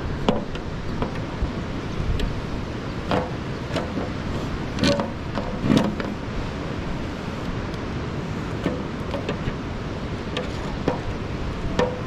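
Wind rumbling steadily on the microphone in the open air, with scattered light taps and knocks.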